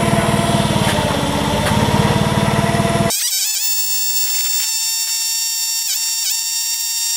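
An engine running, then an abrupt cut about three seconds in to a steady high-pitched whine that dips briefly in pitch three times.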